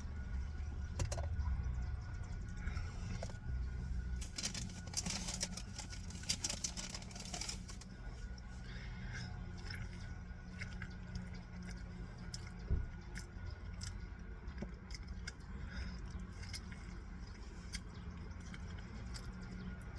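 Rustling, light clicks and scrapes of things being handled, over a steady low hum; the rustling is densest from about four to seven seconds in.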